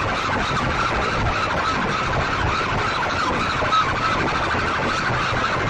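Racks of horn loudspeakers at full volume in a sound-system competition, putting out a loud, heavily distorted, siren-like wavering tone over a constant dense din.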